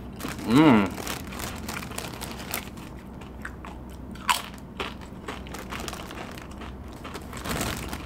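Crisp fried yuca chips being bitten and chewed, a run of short crunches throughout. A brief pitched vocal sound comes about half a second in and is the loudest moment.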